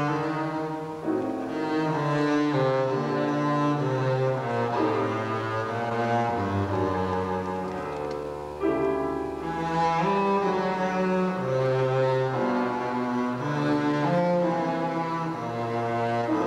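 Bowed double basses playing a Baroque sonata movement in G minor with piano accompaniment, a moving line of sustained notes, with a long low bass note held about halfway through.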